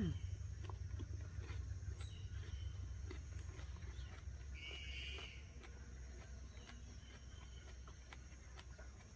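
Quiet outdoor ambience: a low steady rumble, a short bird call about five seconds in, and faint soft clicks of a person chewing a mouthful of ripe persimmon.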